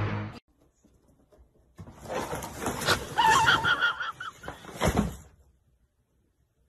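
A cat meowing once, a wavering call about a second long, among soft knocks and rustling.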